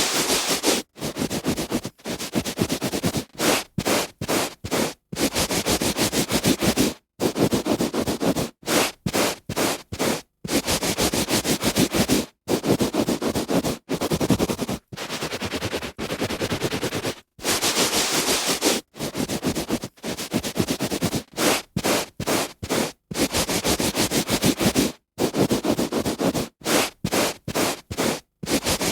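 A hand rubbing on carpet: a run of scratchy rubbing strokes, some short and quick, some a second or two long, each broken off by a brief silent gap.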